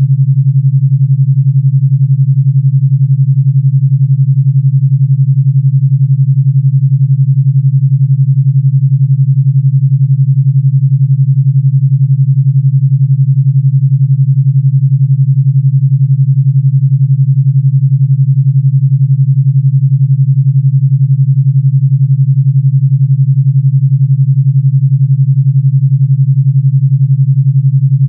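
Steady low electronic pure tone at 141 Hz, pulsing rapidly with an 11 Hz alpha-wave beat.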